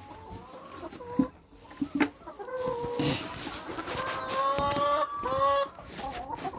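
Chickens calling, with a few short knocks in the first two seconds, then a run of drawn-out, overlapping calls from about two and a half seconds in.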